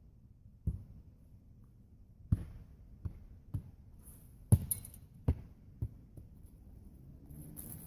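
A run of seven dull thuds at uneven intervals, the loudest about halfway through.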